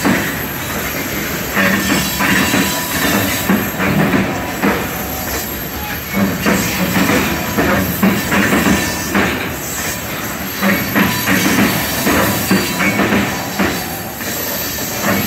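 A long string of covered hopper cars of a freight train rolling steadily past at close range, wheels clacking irregularly over the rail joints, with some faint wheel squeal.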